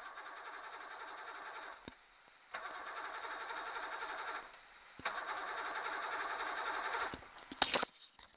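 Electric starter cranking a 1987 Mercury 90 hp two-stroke three-cylinder outboard, turning it over rhythmically in three bursts of about two seconds each with short pauses between. This is cranking for a compression test on the third cylinder. A brief clatter of knocks near the end.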